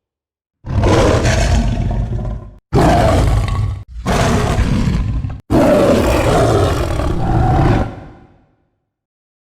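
Werewolf roar sound effect: four loud, rough roars in quick succession starting about a second in, the last one the longest and fading away.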